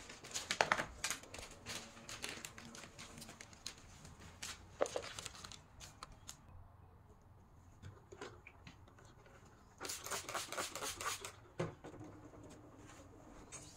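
Light clicks and rustles of objects being lifted off a glass-topped coffee table, then a quick run of spray-bottle squirts of glass cleaner onto the tabletop about ten seconds in.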